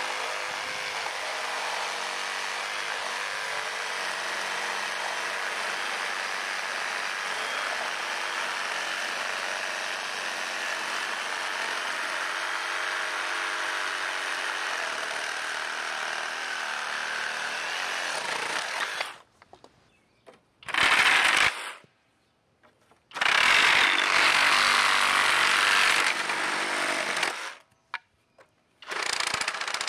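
FLEX 24V cordless reciprocating saw cutting through a stack of wooden 2x4 offcuts, a steady, even buzz of the blade. About two-thirds of the way in the sound drops out to near silence, then comes back in two short, louder bursts of cutting with silent gaps between them.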